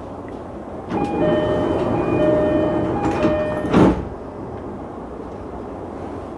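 Door-closing chime of a JR East E233 series train, a two-note high-then-low electronic chime sounding twice, as the doors slide shut. The doors close with a loud thump about four seconds in, and the stopped train's quiet background hum carries on after it.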